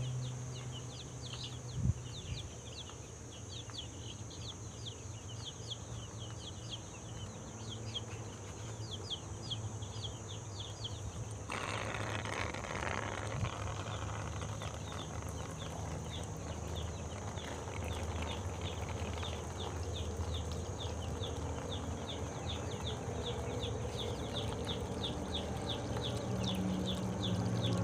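Baby chicks peeping steadily, many short high chirps a second. About halfway through, a rushing noise starts abruptly and slowly fades: water trickling from the feeder's thin tube into the open PVC pipe trough.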